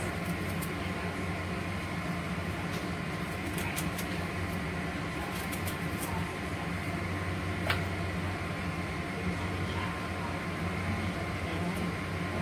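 Steady machine hum with several fixed tones, like a kitchen fan or appliance running, with a few faint clicks of a knife cutting and coring apples.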